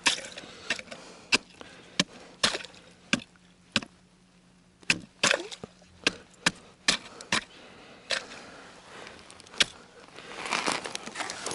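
Ice chisel striking and chipping the thin ice crust that has frozen over an ice-fishing hole: a series of about fifteen sharp, irregular knocks, with a short lull about four seconds in.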